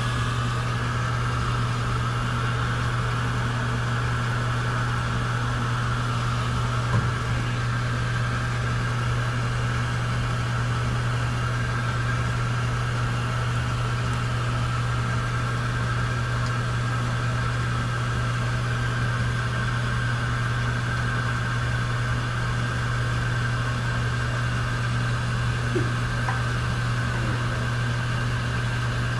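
Steady electric motor hum: a low drone with a higher whine above it, running unchanged with no load changes.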